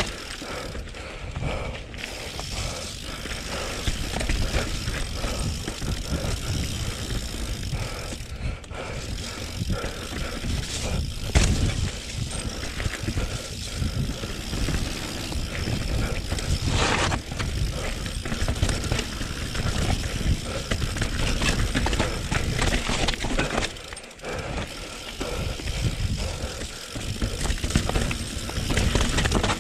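Mountain bike ridden down a rough, slippery forest trail, heard from the bike: tyres rolling over dirt and roots with the chain and frame rattling over the bumps. A sharp knock stands out about eleven seconds in.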